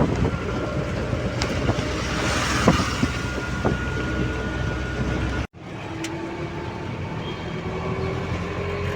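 Steady vehicle and road noise. About halfway through it cuts off abruptly, and a different steady engine drone with a faint, slightly rising tone follows.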